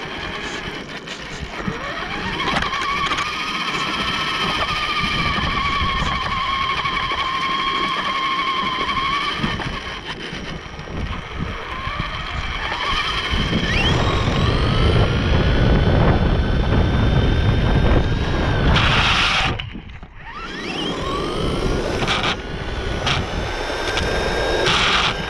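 RC buggy's motor whining as it is driven, the pitch climbing and then holding steady three times, under a rough rumble of tyres on the road. Short loud hissing bursts come twice near the end.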